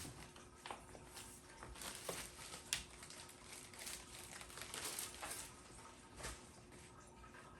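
Packaging being handled: crinkling and rustling with scattered clicks and knocks, one sharp click about a third of the way in.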